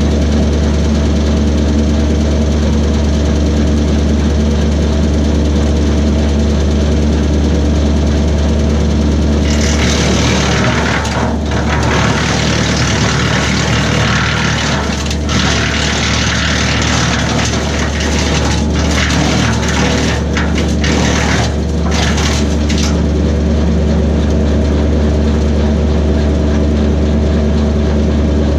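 Kubota B2601 compact tractor's three-cylinder diesel running steadily just after starting. A louder rushing noise joins about ten seconds in and drops away again around twenty-three seconds.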